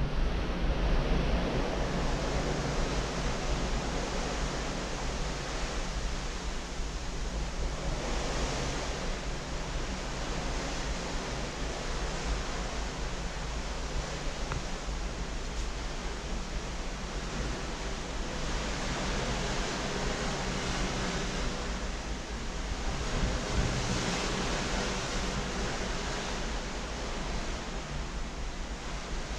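Steady rush of wind and sea water streaming past a cruise ship's hull, heard from a balcony, with slow swells in loudness and a deep rumble underneath.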